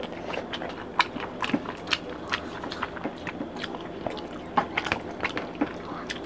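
Two people eating rice and fish curry with their hands: chewing and mouth smacks, heard as a scatter of short, sharp, irregular clicks.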